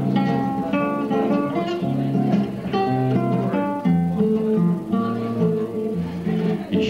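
Acoustic guitar fingerpicked solo, a melody of single plucked notes moving over bass notes and chords.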